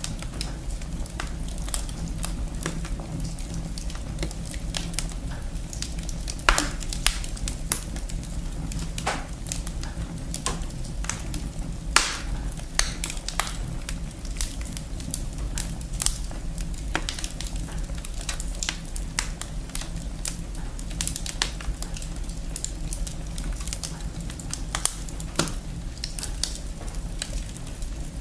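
Wood fire burning in a fireplace: irregular crackles and sharp pops of burning logs over a steady low rumble, with a few louder pops along the way.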